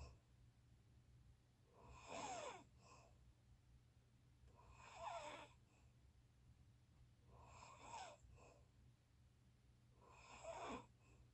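A sleeping person snoring quietly, four breaths about every two and a half to three seconds. Each snore carries a wheezy whistle that slides down in pitch. A steady low hum runs underneath.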